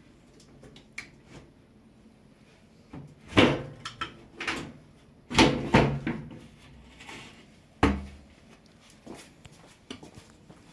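Hands working on a front-loading washing machine's door and door seal: a series of knocks and clunks with rubbing scrapes, the loudest three spread over a few seconds in the middle, with lighter taps around them.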